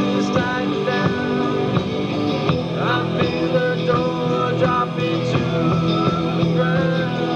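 Rock band playing an instrumental passage: electric guitars over bass and drums, with a bending lead guitar line.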